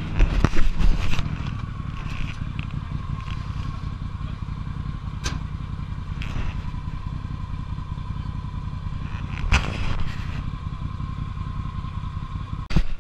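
Can-Am side-by-side's engine idling steadily, with a cluster of clattering knocks in the first second and a few single knocks later on.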